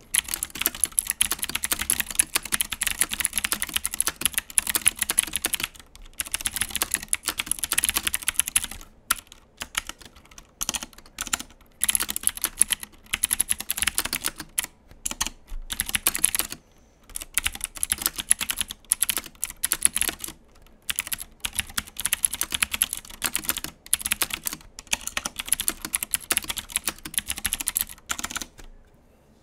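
Fast typing on an IKBC F108 mechanical keyboard with Cherry MX Blue clicky switches: runs of sharp keystroke clicks in bursts of a few seconds with short pauses, stopping about a second before the end.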